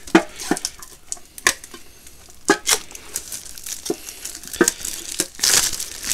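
Plastic shrink-wrap crinkling and tearing as a metal Yu-Gi-Oh Mega Tin is unwrapped and handled, with scattered sharp clicks and knocks throughout and a longer swish of plastic about five and a half seconds in.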